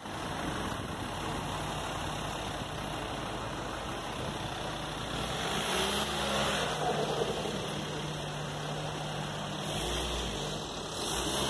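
Street traffic noise with a motor vehicle's engine running steadily close by.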